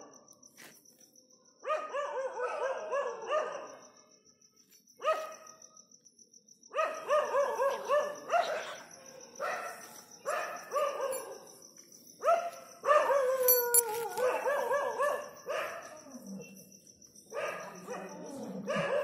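Dog barking over and over in quick runs of short, high barks and yelps, with a drawn-out falling whine about two-thirds of the way in.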